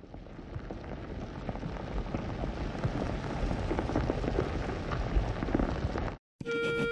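Cartoon sound effect of a heavy panel sliding shut: a rumbling, crackling grinding noise that swells steadily louder and cuts off suddenly as it closes. A few clear keyboard notes start right after.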